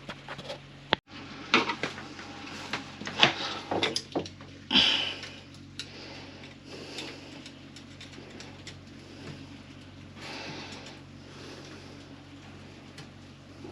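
Irregular clicks, knocks and short scrapes of hands and tools working on hose fittings, with louder clunks in the first five seconds and a faint steady low hum underneath.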